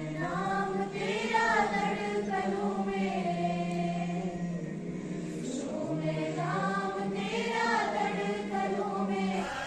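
A group of students singing together in slow, drawn-out phrases on a single melody, as at a school morning assembly prayer. Two long phrases with held notes, with a brief break about five and a half seconds in.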